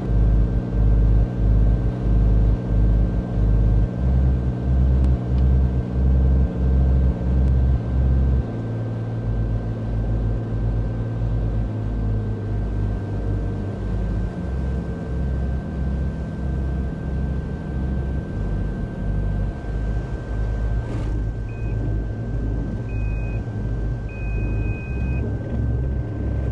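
Cockpit noise of a Cirrus SR22 with its six-cylinder piston engine on a gusty crosswind final approach and landing: a loud, rapidly pulsing rumble, heaviest in the first third, under a steady thin tone. About three-quarters through there is a short knock as the wheels meet the runway, followed by a few short electronic beeps during the rollout.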